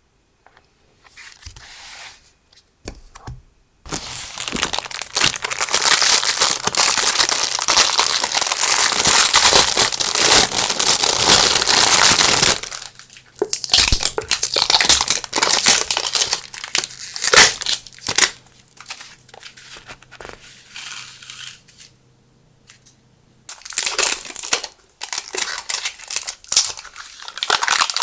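Packaging being handled and opened: a long stretch of dense crinkling and tearing, then scattered crinkles and rustles, a short pause, and more crinkling near the end.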